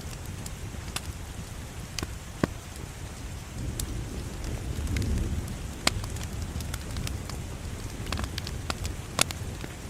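Wood fire crackling in a fireplace: irregular sharp pops and snaps over a low, steady rumble of flames that swells for a moment about halfway through, with a few louder pops later on.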